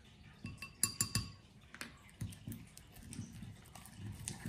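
A few sharp clicks and taps on a ceramic mixing bowl, each with a brief ring, as borax activator is added, then soft, sticky sounds of glue slime being stirred with a stick in the bowl.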